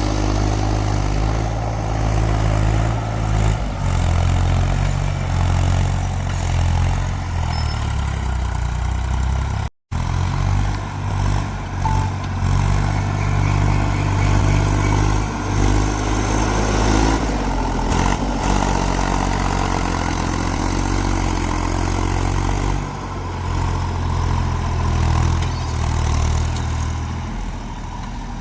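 Heavy diesel engine running steadily, its low note swelling and easing as it works. The sound breaks off to silence for an instant about ten seconds in.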